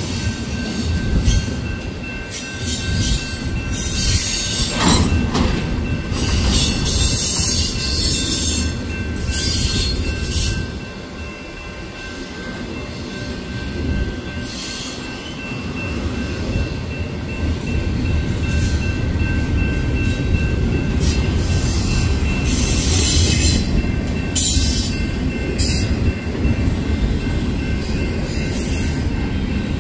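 Union Pacific intermodal freight train's double-stack container well cars rolling past close by: a continuous low rumble of steel wheels on rail, with a steady high-pitched wheel squeal. The rumble eases for a few seconds about a third of the way through, then builds again.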